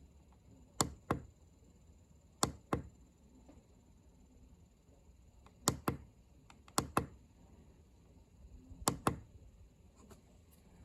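Five pairs of sharp clicks, the two clicks of each pair a fraction of a second apart, with the pairs coming at uneven gaps of one to three seconds, over a faint steady high whine.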